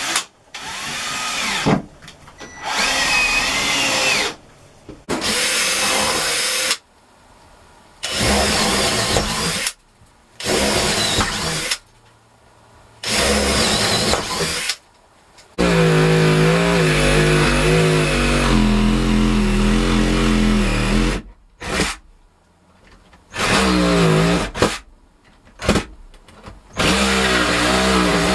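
A cordless drill runs in short bursts, boring through pine roof boards overhead. Then a cordless reciprocating saw cuts the stove-pipe opening through the boards: one long run of about five seconds with a wavering hum, followed by shorter runs near the end.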